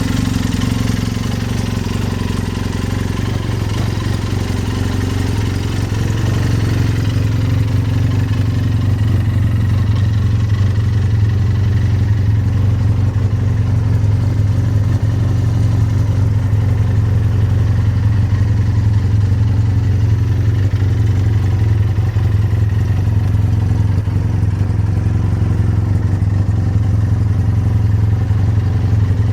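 2012 Arctic Cat Bearcat Z1 XT snowmobile's four-stroke three-cylinder engine idling steadily.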